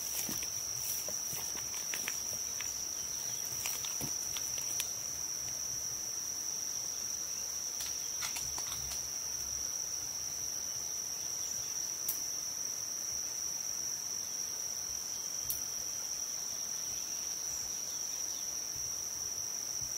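Insects shrilling in one steady, unbroken high-pitched drone. A few faint rustles and clicks come in the first five seconds and again around eight seconds in.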